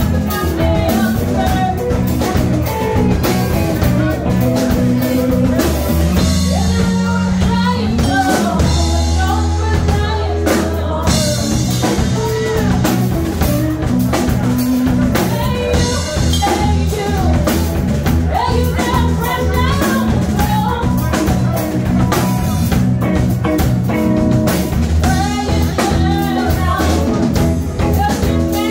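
Live band playing a song, amplified through a small bar's PA: drum kit, bass, electric and acoustic guitars, with a woman singing.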